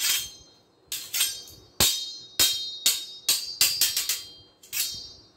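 A thin carbon-steel Tramontina 22-inch golok (machete) blade clashed against a second machete blade about ten times in quick, irregular succession, each strike giving a high metallic ring that fades away.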